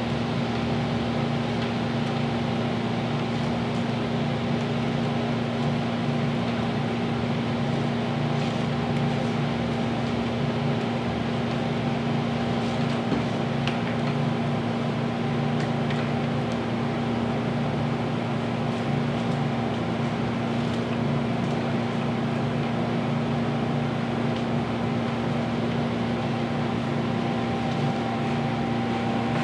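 A steady machine hum with a constant low tone, unchanging throughout, and a few faint clicks near the middle.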